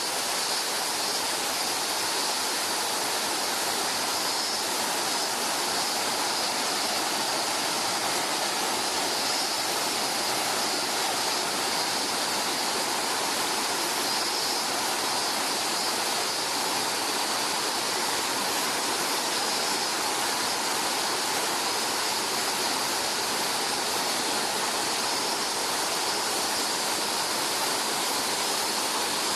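Waterfall pouring steadily: an even, unbroken rush of falling water that stays constant throughout.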